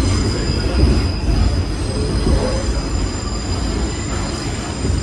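R46 subway car running, heard from inside the car: a steady rumble of wheels on the track with a faint, steady high-pitched tone above it.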